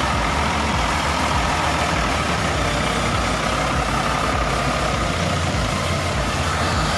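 Diesel engine of a large intercity coach bus running steadily as the bus pulls slowly away, a constant low rumble.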